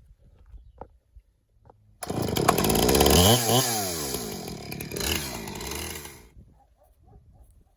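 Husqvarna chainsaw on an Alaskan chainsaw mill, cutting in suddenly about two seconds in and running hard at full throttle; its engine note dips and climbs back once, then dies away about four seconds later.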